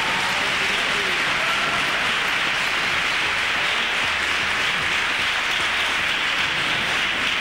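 Crowd applauding steadily at the end of a sung performance.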